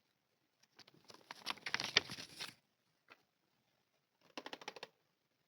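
Small plastic toy pieces and packaging being handled, giving two spells of rapid crackling clicks, the first longer and louder than the second.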